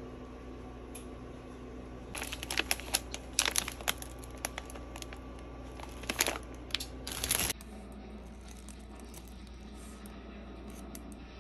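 Plastic grocery packaging crinkling and rustling in quick bursts as the items are handled, starting about two seconds in and stopping sharply after about five seconds, over a steady hum.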